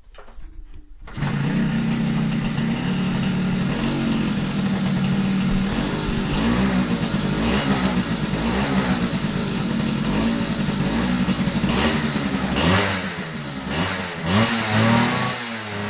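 Motocross dirt bike engine firing up about a second in, then running steadily, and revved up and down several times near the end.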